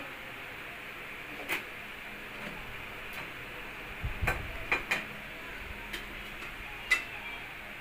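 A spoon tapping and scraping against a plastic food container while a creamy mango mixture is spread over graham crackers: a few sharp clicks spaced out, a quick cluster of them with a low bump about four seconds in, and the sharpest click near the end, over a steady faint hiss.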